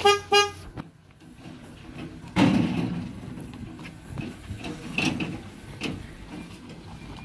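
Car horn tooting twice in quick succession, followed about two seconds later by a longer scraping rattle and a few scattered knocks.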